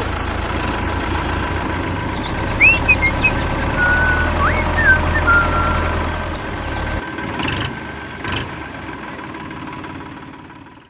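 Steady low motor hum of a mini backhoe machine, cutting out about seven seconds in. A few short whistling chirps sound over it near the middle, and two clicks follow after the hum stops.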